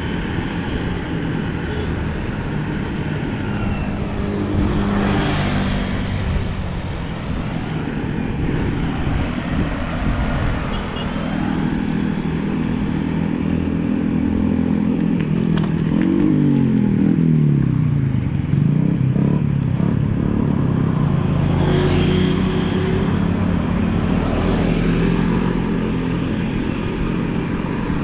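Motor vehicles passing on the road, one with its engine pitch falling as it goes by about 16 seconds in. Underneath is a steady rolling hiss from bicycle tyres on the road.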